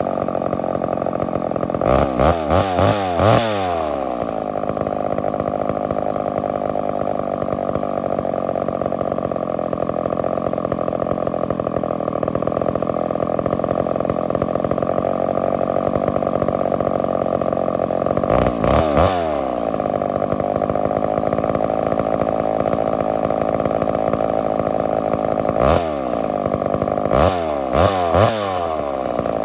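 Homelite Super XL-923 82cc two-stroke chainsaw running steadily at high revs. Its pitch surges and dips briefly about two seconds in, again near the middle, and several times near the end.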